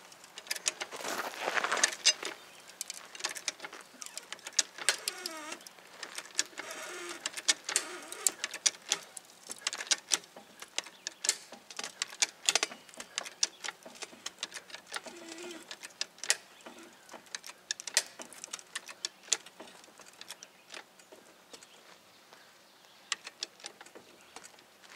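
Outdoor ambience: insects buzzing and birds calling, with many scattered light clicks and clinks.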